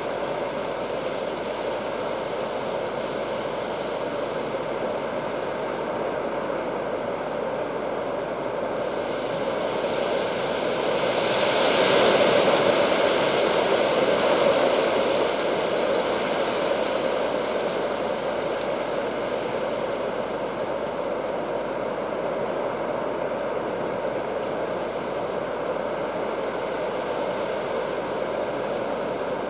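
Stormy weather picked up by the camera's microphone: a steady rush of wind and rain that swells for a few seconds near the middle, as in a gust.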